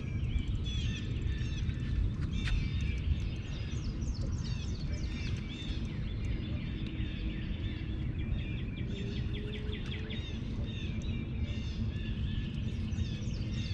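Many small birds chirping continuously in quick, overlapping calls, over a steady low rumble.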